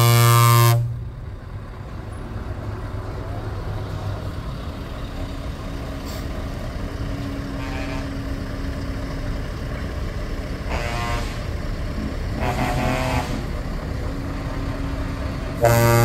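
Truck air horn: a loud held blast that ends about a second in, a few shorter, fainter toots around the middle, and another loud blast starting just before the end. A truck engine runs steadily underneath.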